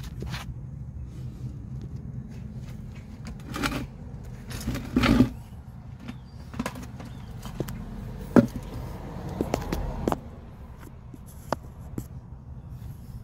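Scattered metallic clinks and knocks of tools and parts being handled, with a louder clatter about four to five seconds in and a sharp knock a few seconds later, over a steady low background rumble.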